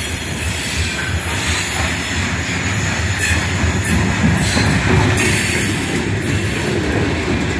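Loaded coal hopper cars of a freight train rolling past at close range: a steady, loud rumble of steel wheels on the rail with a hiss over it.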